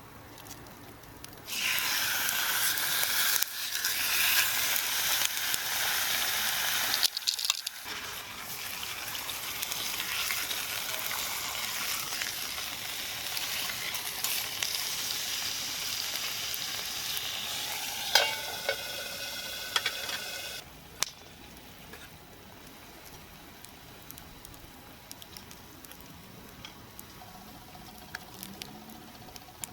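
Food sizzling in a frying pan over a campfire, a loud steady hiss with a couple of brief breaks. It cuts off suddenly about two-thirds of the way through, leaving only faint scattered ticks.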